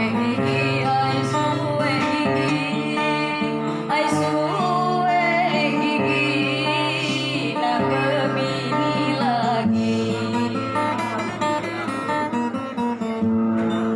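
A Batang Hari Sembilan regional song from South Sumatra, sung with guitar accompaniment. Held instrumental notes run underneath a wavering vocal line.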